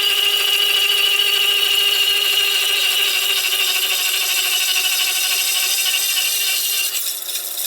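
Tool-post-mounted saw on a Monarch 10EE lathe cutting into a metal shaft to part off a thin washer: a steady high-pitched whine over a rasping cutting noise. The cutting noise falls away about seven seconds in as the washer comes free.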